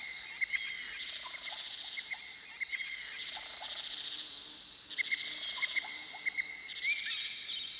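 Tropical rainforest ambience: a steady high insect buzz, with short chirps repeated every second or so and scattered lower animal calls.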